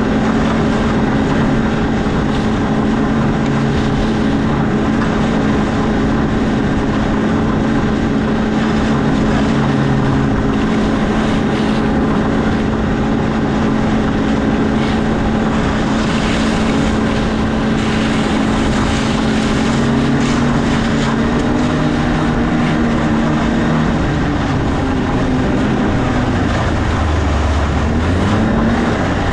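An engine running steadily at a constant pitch, which shifts and drops near the end.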